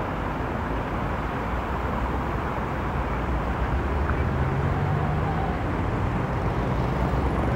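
Road traffic passing at a city roundabout: a steady wash of car engines and tyres, with a heavy vehicle's low engine drone growing louder from about halfway through as a city bus approaches.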